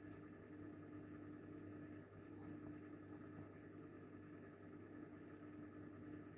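Near silence with the faint steady hum of aquarium equipment: a low drone and a higher tone that drops out briefly now and then.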